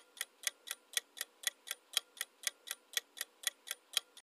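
Clock-ticking sound effect for a quiz answer timer: sharp, evenly spaced ticks, about four a second, stopping just before the end.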